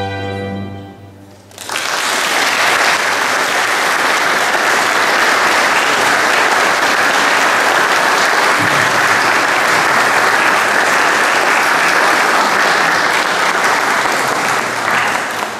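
The final chord of a small string ensemble dies away, and about a second and a half in, an audience breaks into steady applause that fades out near the end.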